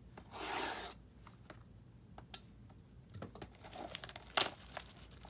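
Plastic shrink wrap on a sealed trading card box being slit with a box cutter and peeled away. A rasping tear comes just after the start, then scattered crinkles and clicks, the loudest a single sharp crackle about four seconds in.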